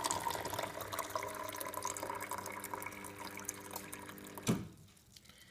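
Encore Auto drinks vending machine dispensing a timed shot of hot water into a plastic cup: a steady stream pouring with a faint steady tone under it. The flow stops with a short click about four and a half seconds in, at the end of a dose set to 5.6 seconds.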